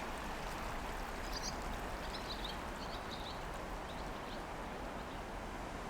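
Steady outdoor background noise with a few faint, short bird chirps through the middle.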